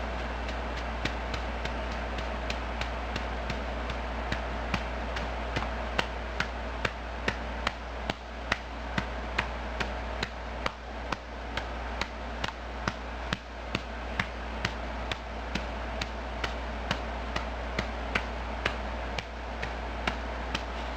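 A hand patting a baby's back to bring up a burp: steady soft pats about twice a second, over a low steady hum.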